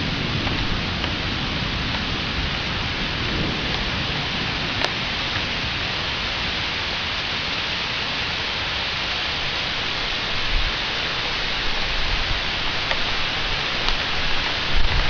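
Steady heavy rain of a thunderstorm, with a low thunder rumble fading away as it begins and further low rumbles near the end.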